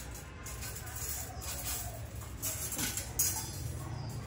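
Wire clothes hangers jingling and clinking against a stainless-steel drying rack, with clothes rustling as they are handled, in several short bursts.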